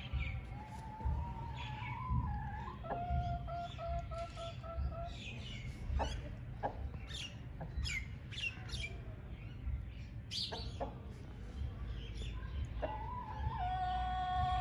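Chicken calls: long drawn-out notes, one rising and one wavering, in the first few seconds and again near the end, over many quick high chirps from small birds.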